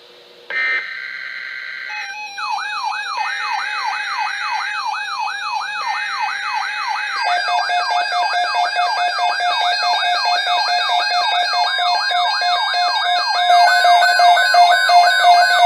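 Weather radio alert tones: three short rasping data bursts of an emergency alert header, overlaid from about two seconds in by an electronic siren sweeping up and down about three times a second. More steady and warbling alarm tones join about seven and thirteen seconds in, and the whole gets louder.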